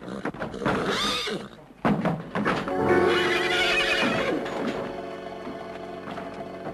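Restless colts neighing and whinnying a few times in the first half. Music with long held notes comes in about three seconds in and carries on over them.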